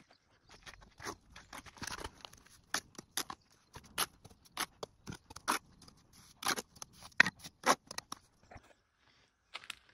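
Steel trowel scraping mortar off a wooden mortar board and spreading it along the tops of hollow clay bricks: a run of short, sharp, irregular scrapes that stop about eight seconds in.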